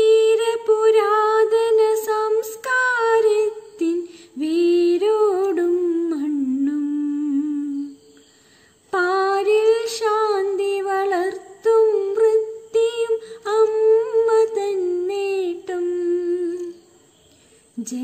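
A woman humming a wordless melody unaccompanied, as an interlude between verses of a song. It comes in long held, gently wavering phrases, with a breath pause about eight seconds in and another near the end.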